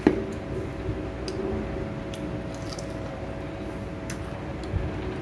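Close mouth sounds of someone chewing a dried red jujube, soft and moist, with a few small clicks over a faint steady hum.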